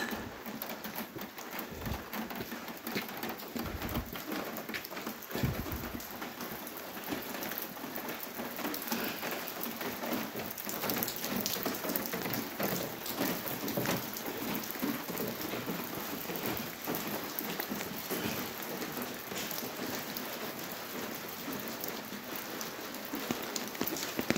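Steady rain falling, a dense patter of drops hitting hard surfaces, with three dull low thumps in the first six seconds.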